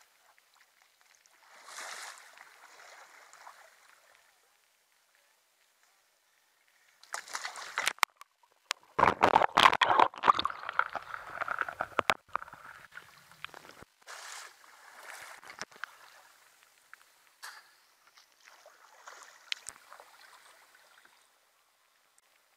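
Water splashing and sloshing around a sea kayak, with a loud, dense stretch of splashing about a third of the way in as the kayak is capsized and rolled back up. Smaller splashes and drips follow as the paddler settles upright.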